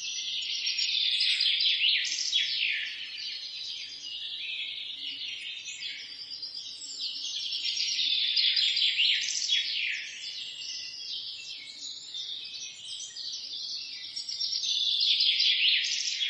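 Dense chorus of many small birds chirping and twittering in quick overlapping calls. It swells and fades in waves about every seven seconds.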